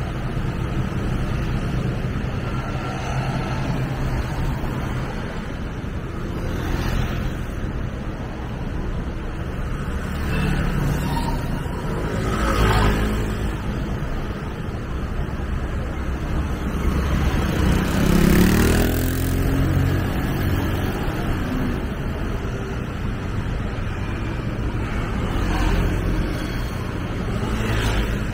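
Street traffic: motor vehicles pass one after another over a steady low rumble, the loudest going by about eighteen seconds in with a rising and falling engine note.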